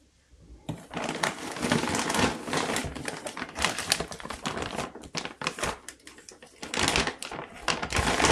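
Plastic bags of Espoma potting mix crinkling and rustling as they are handled, starting about a second in and easing briefly before picking up again near the end.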